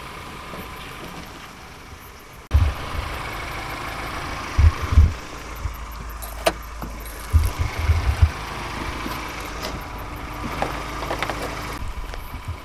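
A car engine idling steadily, with several low thumps and a sharp click over it.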